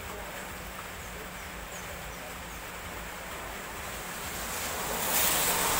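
Steady hiss of rain over a wet road. Near the end it swells as a vehicle's tyres hiss past on the wet tarmac.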